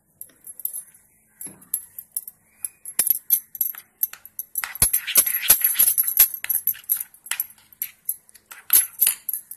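Metal spoon stirring soft cooked oats and honey in a glass bowl: repeated clinks and scrapes of the spoon against the glass, busiest in the middle.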